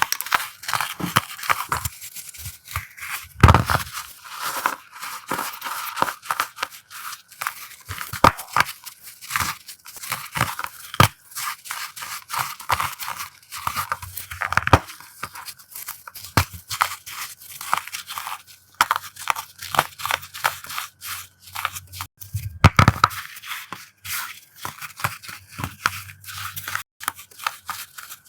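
Pressed powder blocks being crushed by hand: dense, crunchy crackling made of many quick snaps, with heavier crunches about three and a half seconds in and again near twenty-three seconds.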